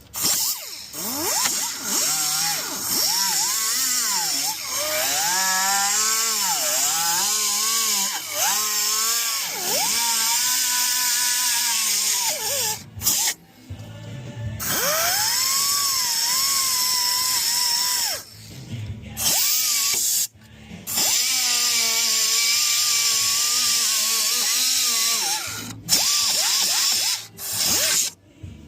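Handheld electric power tool working sheet metal during rust patch repair, its motor whine dipping and recovering in pitch as it bites under load. It comes in several runs of a few seconds, broken by brief silent gaps.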